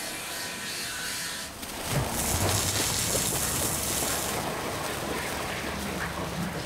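Molten iron pouring from a foundry furnace: a loud rushing, crackling pour that starts suddenly about two seconds in, with a strong hiss for its first couple of seconds over a low rumble. Before it, a steady low hum.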